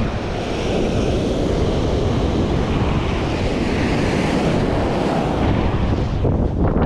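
Surf breaking on a sandy beach, a steady rushing wash, with wind buffeting the microphone.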